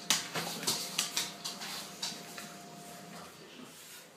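A dog's claws clicking and tapping on a wooden worktop, a quick run of sharp taps loudest just after the start and thinning out after about two seconds, over a faint steady hum.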